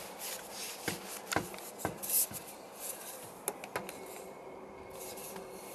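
Scattered light clicks and taps with rubbing in between, from hands handling black plastic downpipe fittings: a push-fit elbow on a strap-on boss.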